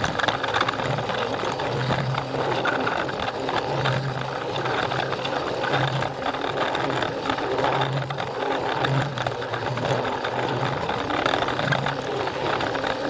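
A Plarail battery-powered toy train's small electric motor and gearbox whirring steadily as it runs along plastic track, with a low hum that swells and fades every second or two.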